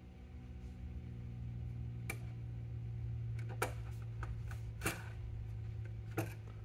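Scattered small clicks and taps of a hand screwdriver driving the small mounting screws into a circuit board, more frequent toward the end, over a steady low hum.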